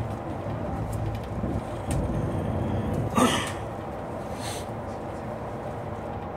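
MAN shuttle bus running on the road, heard from inside the passenger cabin as a steady engine and tyre rumble. There is a short, sharp burst of noise about three seconds in and a fainter one a second later.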